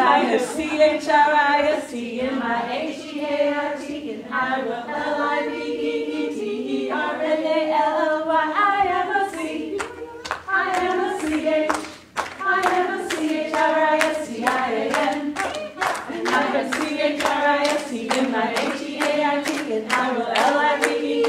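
Women's voices singing a children's Sunday-school song together, with hand-clapping on the beat joining in about halfway through.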